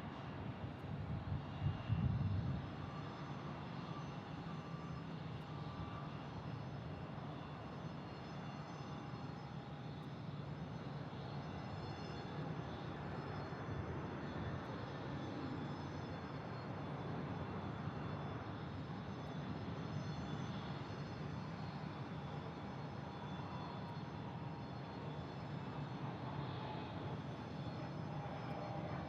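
Jet airliner engines running, a steady rumble with a faint high whine. There are a few louder low bursts in the first couple of seconds.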